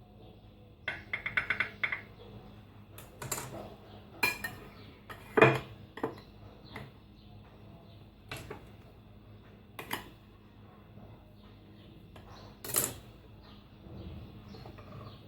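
Cutlery and dishes clinking: a quick run of ringing clinks about a second in, then separate knocks and taps of utensils on plates, the loudest about five seconds in.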